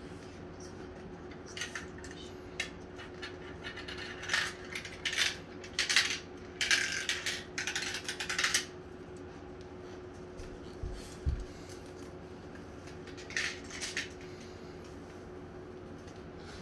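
Marbles clattering and rattling down the plastic tracks, funnels and spirals of a toy marble run, in a string of clicking bursts through the first half and a short burst again later.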